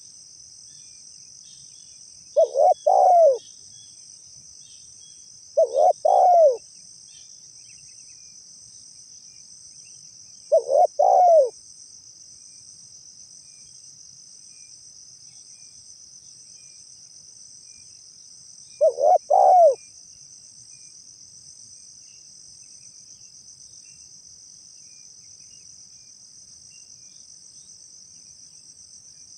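Spotted dove cooing: four three-note coo phrases, each under a second, coming a few seconds apart. A steady high insect drone runs underneath.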